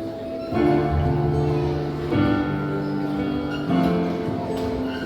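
Instrumental church music: held chords on accompanying instruments, changing about every second and a half.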